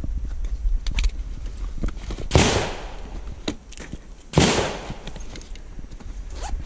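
Two sharp bangs about two seconds apart, each with a short fading tail, over light clicks and rustles of gear being handled and a low rumble.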